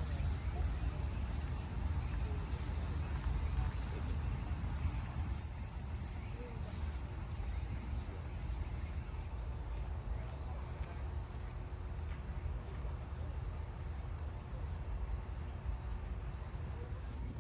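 Insects chirping in a steady, high, finely pulsing trill, over a low rumble.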